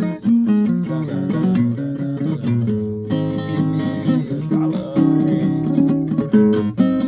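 Guitar being played, a steady run of picked notes and strummed chords.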